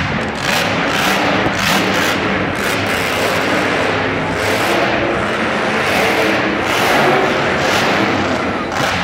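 Monster truck's supercharged V8 revving loudly, rising and falling as the truck jumps and climbs over the dirt mounds, heard in a large arena.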